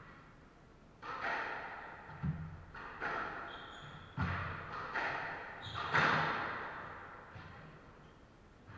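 Squash rally: about six sharp hits of the ball off rackets and court walls, roughly one a second, each ringing in the court's echo, with short high squeaks of sneakers on the wooden floor. The last and loudest hit comes about six seconds in.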